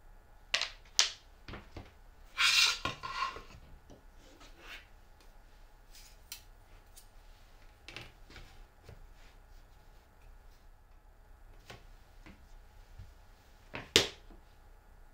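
Plastic cutting-board pieces and a steel rule handled and set down on a cutting mat and board: a few light taps, a brief sliding rustle about two and a half seconds in, and a sharper tap of plastic set down on the board near the end.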